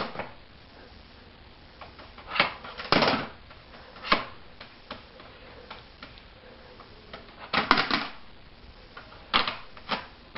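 Irregular knocks and clatters: a handful of short, sharp hits spaced a second or more apart, with a quick cluster of them about two thirds of the way through.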